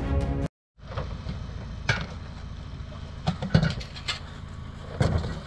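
Music cuts off about half a second in. Then a hovercraft's engine runs steadily at idle, with several knocks and clatters of gear being handled.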